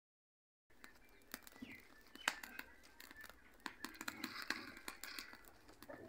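Faint, scattered crackles and snaps of a fire of dry cotton-plant stalks and twigs burning under a cooking pot, after a moment of dead silence at the start.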